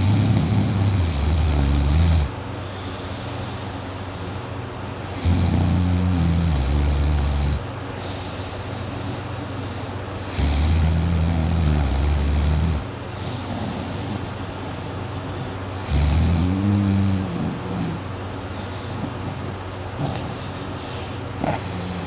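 A sleeping man snoring loudly: four long, low snores about five seconds apart, each lasting about two seconds, with a steady low hum in between.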